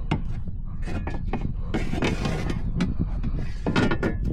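Irregular clicks and knocks of fishing gear being handled in a kayak, with a brief scraping rustle about two seconds in.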